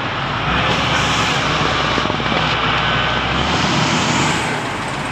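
A vehicle engine running steadily, loud, with a low hum under a dense hiss that eases slightly near the end.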